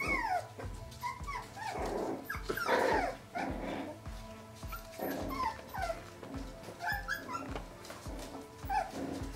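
31-day-old miniature Australian Cattle Dog puppies whining and yipping in short, high cries that fall in pitch, with a couple of louder, rougher cries about two and three seconds in. Background music with a steady beat runs underneath.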